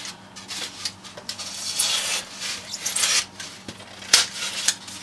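Utility knife cutting and scraping pink extruded polystyrene foam, irregular rasping strokes, with one sharp crack a little after four seconds.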